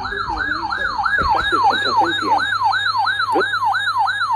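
Siren in a fast yelp, its pitch rising and falling about three times a second, cutting off suddenly at the end.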